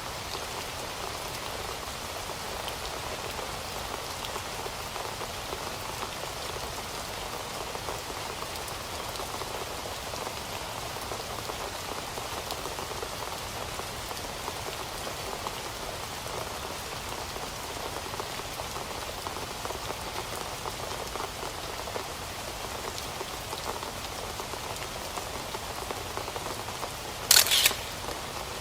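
Steady rain falling, a constant even hiss. Near the end a sharp double click stands out, the loudest sound in the stretch.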